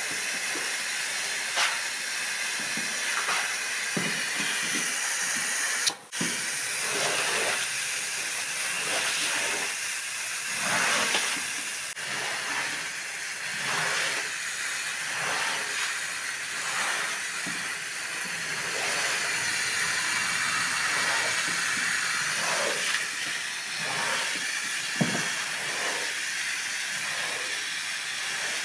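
Pressure washer jet spraying water onto a wet pile rug: a steady hiss that swells and fades as the lance sweeps back and forth, with a brief break about six seconds in.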